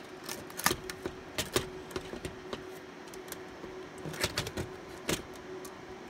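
Irregular sharp clicks and knocks of plastic and metal parts being pushed and handled inside an open Dell PowerEdge R720XD server chassis, over a steady low hum. They come in small clusters near the start, around the middle and near the end. The part being fitted is jamming instead of seating.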